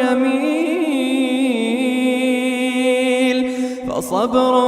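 Quran recitation: a single reciter's voice holds one long melodic note with small ornamental turns in the tajweed style. There is a brief break for breath near the end, then the voice goes on.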